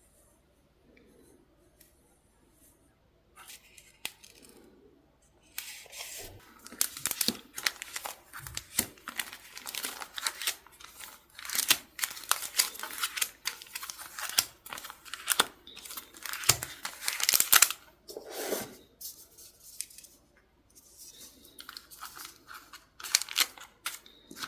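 Paper being torn and handled, with crisp rustling and tearing. It starts about five seconds in, pauses briefly, then starts again near the end.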